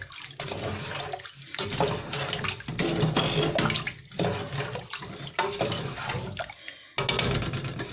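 Wooden spoon stirring rice and whole spices in cold water in a metal pot: the water sloshes in repeated strokes, with short pauses between them.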